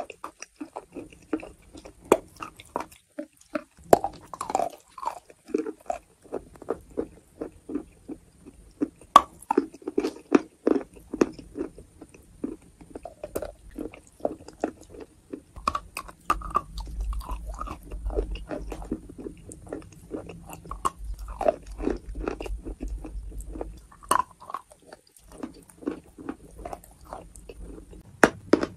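A person biting and chewing chalk, with close, irregular crunching.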